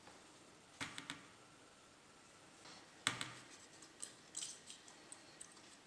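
Faint clicks and knocks of a laptop's copper heat-pipe and fan cooling assembly being picked up and handled: two light clicks about a second in, a sharper knock about three seconds in, then a scatter of small clicks.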